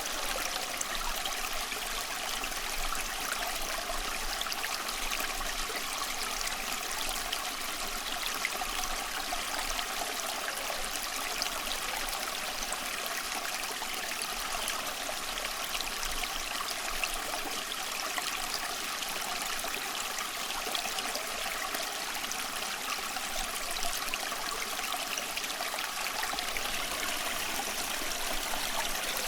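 A stream of water flowing steadily: a constant rush made of many small splashes, with little low rumble.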